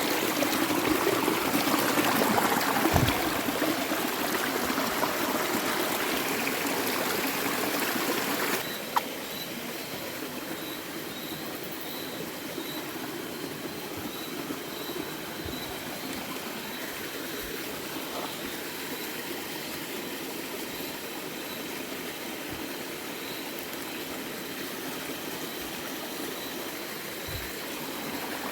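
Creek water running and trickling. About nine seconds in, the sound drops abruptly with a click, and quieter running water continues under a faint, high chirp that repeats steadily.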